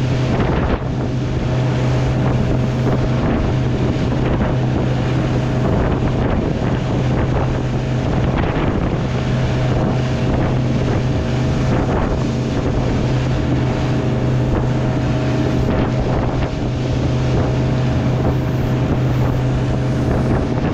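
Small motorboat's engine running at a steady speed under way, with wind buffeting the microphone and the rush and splash of spray and water.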